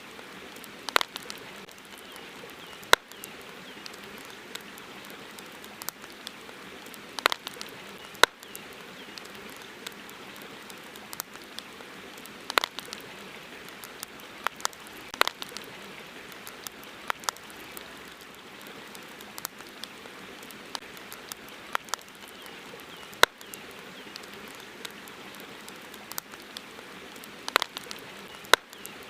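Wood campfire crackling: irregular sharp pops, about one or two a second, over a steady hiss. A few pops stand out louder than the rest.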